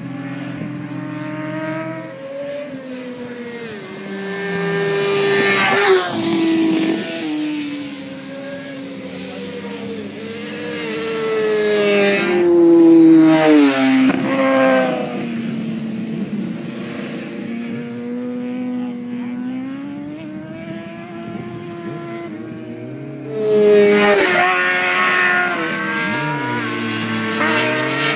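Sport motorcycles lapping a race track, several engines revving high at once. Bikes pass close by about six, thirteen and twenty-four seconds in, each engine's pitch dropping as it goes past.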